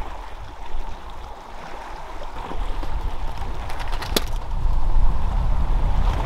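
Wind rumbling on the microphone over a steady hiss of sea noise, with a single sharp click about four seconds in.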